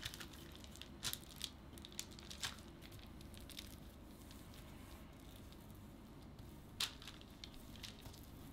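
Faint crinkling and rustling of plastic cling wrap as hands press and smooth it over a flattened sheet of minced pork on baking paper. There are a few soft crackles over low room noise, the clearest one near the end.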